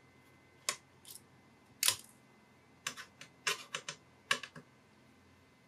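Sharp clicks and clatters of hard parts being handled while a back plate is taken off a power supply's circuit board. About a dozen come in irregular groups, the loudest about two seconds in.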